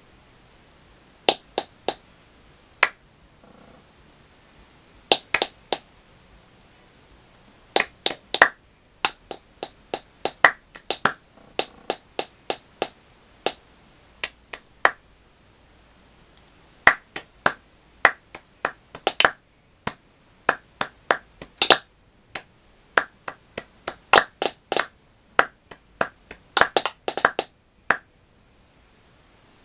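Hand claps and paper-cup taps played in layered rhythmic patterns. The sharp strokes come in short phrases, with brief pauses between them.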